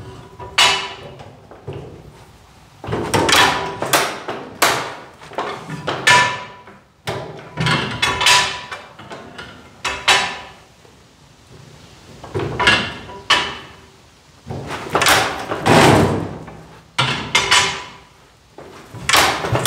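Sharp clanks and pops from a Rumley OilPull tractor's engine as its flywheel is heaved over by hand for a cold start. They come in irregular groups of two to four and echo in the shed, with the engine not yet running on its own.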